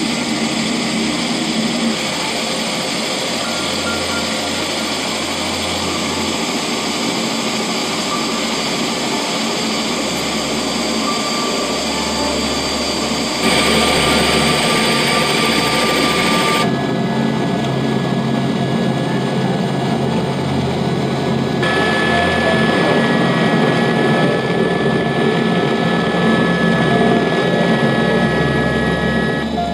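Helicopter turbine engine and rotor running, a steady dense noise whose tone and loudness jump abruptly about 13 and 17 seconds in.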